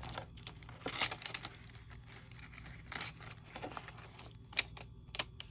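Paper bills and envelopes being handled and counted, with irregular rustling and crinkling and light clicks of paper, strongest about a second in.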